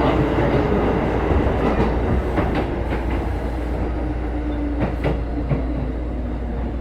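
Interior running sound of a Keikyu 1500 series field-chopper-controlled car: a steady rumble with wheels clicking over rail joints, several times. A steady tone slowly falls in pitch as the train slows for a station.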